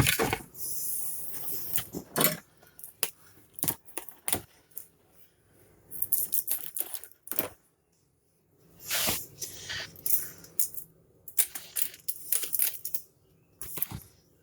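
Velcro strips being fitted to the underside of a plastic RC truck body: a few short rasping tearing sounds, as of Velcro pulled apart or backing peeled off, among scattered clicks and taps of hard plastic.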